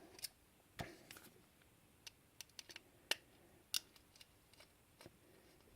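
Faint, scattered small clicks and taps of metal parts being handled as the neodymium magnets are worked off a Quantum Go Drive hard drive's head actuator.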